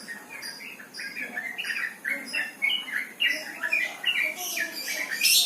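Yellow-vented bulbul (trucukan) singing: a fast run of short, bubbly notes, several a second, ending in a loud sharp note near the end.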